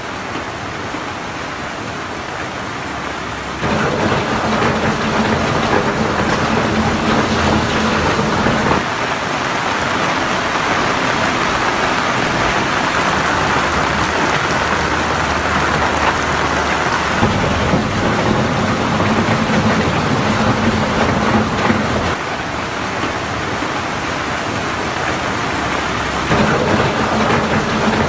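Heavy rain pouring down in a dense, steady wash of noise that steps abruptly louder or quieter several times.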